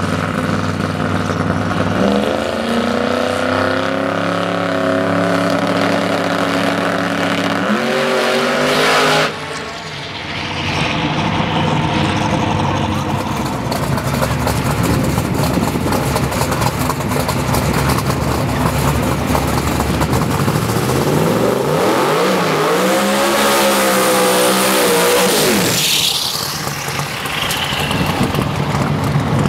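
Twin-turbocharged, alcohol-injected Pro Mod Camaro drag race engine running, revving up with rising pitch for several seconds. Later it revs in short, wavering bursts at the starting line and then launches hard, with a rising high whine as it pulls away.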